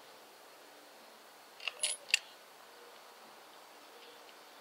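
A quick cluster of three or four sharp metallic clicks and clinks about two seconds in, as the steel parts of a pulley installation tool are fitted onto a power steering pump pulley; otherwise only a faint background.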